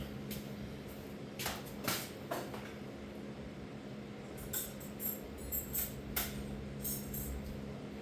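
Hand tools clinking and clattering against metal, a few sharp clinks early on and a quicker cluster a little past halfway, as a wrench is fetched, over a steady low hum.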